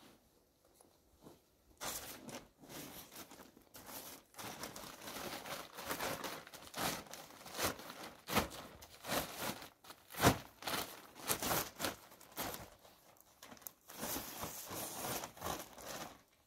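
Woven plastic bag rustling and crinkling as it is handled and filled, with irregular sharp crackles, starting about two seconds in.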